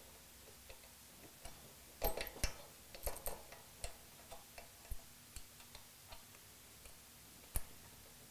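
Light metallic clicks and clinks of an AeroVee engine's rocker shaft and rocker arms being fitted by hand onto the cylinder head, with the pushrod measuring tool seating in a rocker arm cup. A quick run of clicks comes about two to three seconds in, then single clicks now and then, one sharper one near the end.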